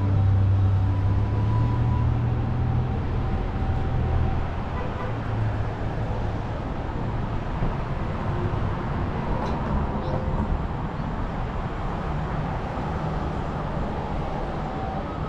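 Street traffic noise, with a vehicle's low hum fading away over the first few seconds. Faint violin and flute notes sound over it at first, then the steady traffic haze remains.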